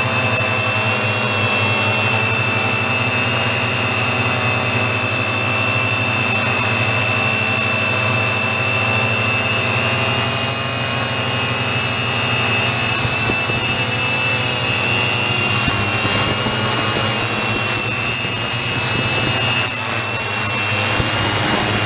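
Camera drone's motors and propellers whining steadily in a hover, heard from the drone's own onboard microphone. Near the end the sound shifts as the drone drops low over the ground.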